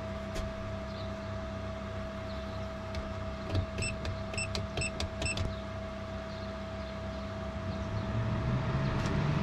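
Camper-van roof vent fan running with a steady motor hum. Its control panel gives about five short, quick beeps as buttons are pressed, about four seconds in. Near the end the fan's hum grows louder.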